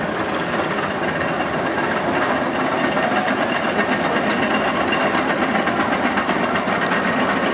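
Vekoma steel roller coaster train running along its track: a steady rolling rumble with rattling, growing slightly louder.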